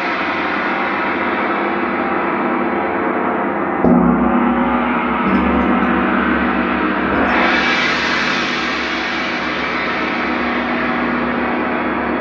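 Large Paiste gongs ringing in a dense, sustained shimmering wash, played with a soft felt mallet. A fresh strike about four seconds in adds a low held tone, and the shimmer swells brighter a few seconds later.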